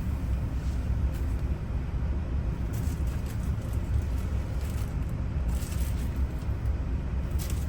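A steady low rumble from a running engine, with a few faint small clicks as loose ignition-lock wafers are picked through by hand, near the middle and again near the end.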